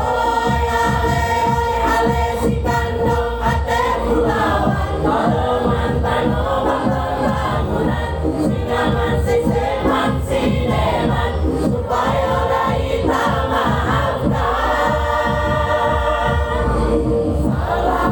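A choir singing long held chords over an amplified backing with a steady beat.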